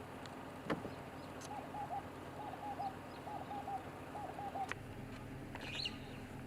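A bird calling a short three-note phrase, repeated four times about once a second. A sharp click comes before the first phrase and another after the last, and a higher chirp follows near the end.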